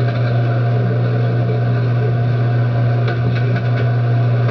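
Loud, steady low electrical hum on a surveillance recording's audio, with a few faint clicks about three seconds in.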